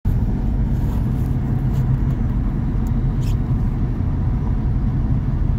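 Steady low road and engine rumble inside a moving car's cabin as it drives along a street.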